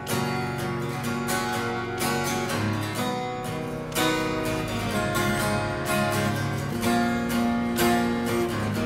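Cowboy GWC 240NS jumbo cutaway acoustic guitar played unplugged for a sound check, chords strummed one after another with no singing.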